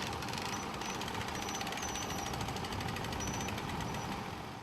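Portable sawmill's small engine running steadily, with a very fast, even knocking rhythm and brief high squeaks now and then. It fades out near the end.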